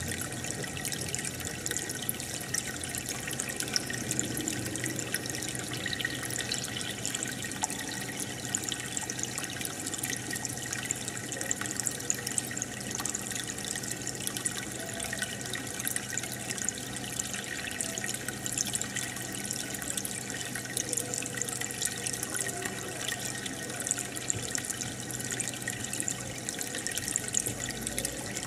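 Aquarium water bubbling and trickling steadily, with many tiny pops from a stream of air bubbles, and a faint low steady hum underneath.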